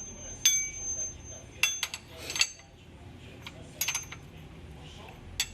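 Metal clinking: about five sharp metallic taps spread over several seconds, some with a short ring, from steel tools or engine parts being handled.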